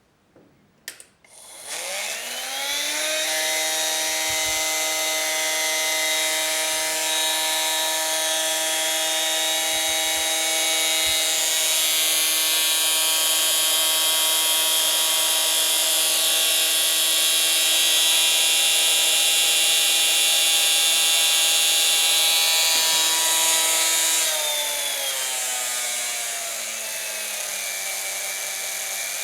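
Home-built steel rotary tool (straight grinder) driven by a 12-volt brushed DC motor, spinning up about two seconds in to a steady high whine with several overtones. Near the end the pitch drops and it settles into a lower, steady whine.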